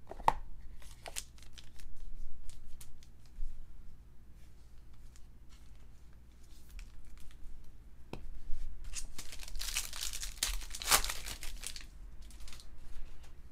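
A foil trading-card pack wrapper being torn open and crinkled, the crackling densest and loudest in the last few seconds. A few light clicks of cards being handled come earlier.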